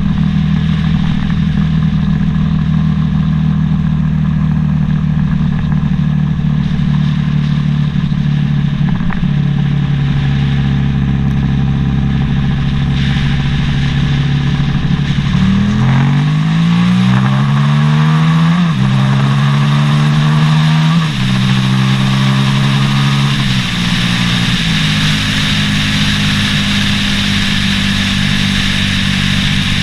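Suzuki SV650X's V-twin engine running steadily at speed. About halfway through it accelerates hard through the gears, its pitch climbing and dropping back at each upshift, then settles into a steady cruise as the hiss of wind and road noise grows louder.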